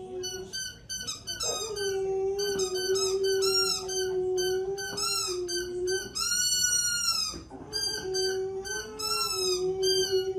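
A dog howling, with one long arching howl about six seconds in, over a long, nearly steady held tone and quick repeated high notes.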